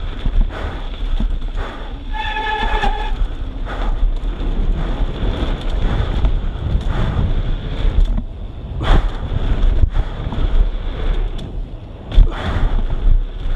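Wind buffeting the microphone as a downhill mountain bike rides fast down a dirt trail, with knocks from the bike over bumps, two of them sharper about nine and twelve seconds in. A brief high tone sounds about two seconds in.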